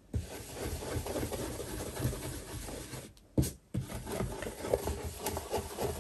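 Ink-blending brush rubbing over a layering stencil and cardstock in quick strokes around the design's details: a soft scratchy brushing that pauses briefly about three seconds in.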